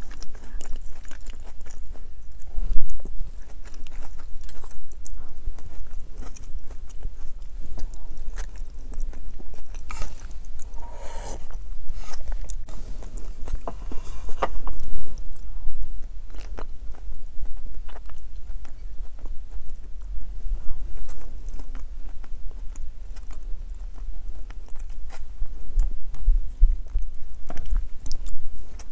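A person chewing and biting food at close range, eating boiled egg and vegetable soup with chopsticks, picked up by a clip-on microphone on her shirt. Small clicks run throughout, with a louder, noisier stretch in the middle.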